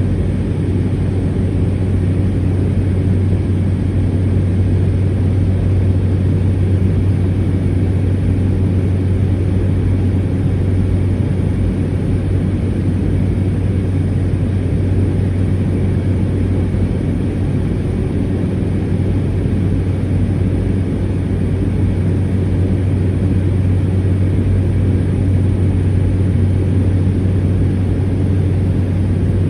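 Cessna 208 Caravan's single turboprop engine and propeller running steadily, a loud even drone with a strong low hum that holds its pitch.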